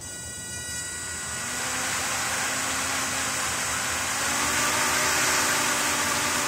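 Small homemade quadcopter's four motors and propellers spinning up and running with a whir that builds over the first two seconds, then holds, stepping up slightly in pitch about four seconds in. The craft runs on a 2S battery that is running low.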